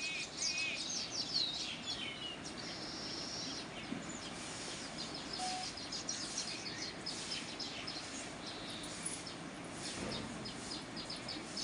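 Small birds chirping and twittering in quick, repeated high calls over a steady background hum.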